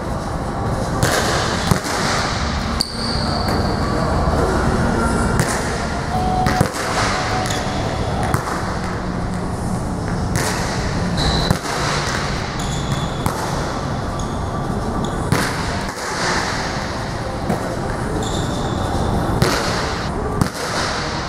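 Volleyballs being struck and bouncing on a hard gym floor, sharp echoing smacks every second or few, with a few short high squeaks in between over steady background noise.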